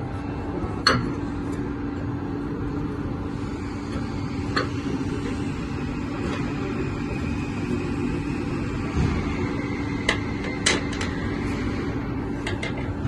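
Steady machine hum, with a few sharp metallic knocks and clicks from parts being handled during the core cutter set-up.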